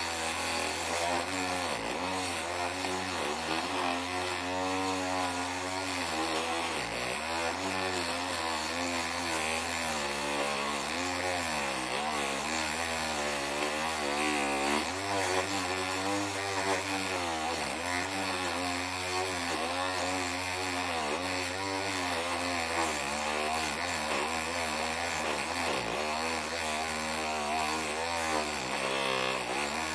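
Electric power tool running under load, its motor pitch rising and falling continuously as a blade works on ceramic tile.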